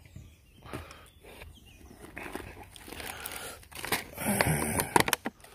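Plastic food packaging being handled: crinkling of crisp packets and a clear plastic salad tub, with sharp plastic clicks as the tub is picked up, busiest in the second half.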